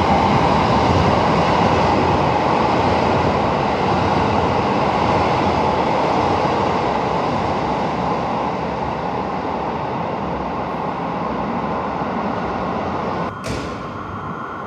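Electric Rapid Airport train passing at speed along the station platform: a steady loud rumble of wheels on rail that eases a little. The sound breaks off abruptly near the end, leaving quieter station background.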